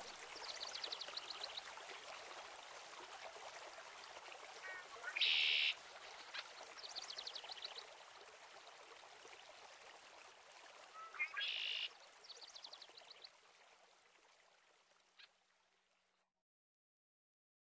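Nature-sound ambience: a steady hiss like running water, with a quick series of high chirps about every six seconds and two louder short calls. It fades out to silence near the end.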